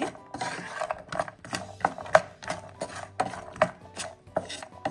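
Wooden spatula stirring roasted makhana (fox nuts) around a nonstick pan: irregular scrapes and taps, about two or three a second, with the puffed seeds rattling against the pan.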